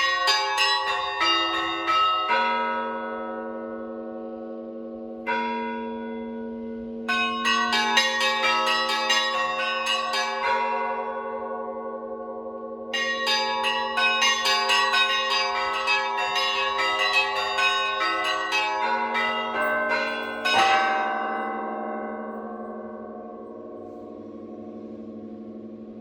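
Russian Orthodox church bells rung by a bell-ringer in a festive peal for a feast day: quick clusters of small bells chiming over deeper bells that hum on. The rapid chiming comes in three runs with short pauses between. About twenty seconds in a heavy stroke is left to ring and slowly fade.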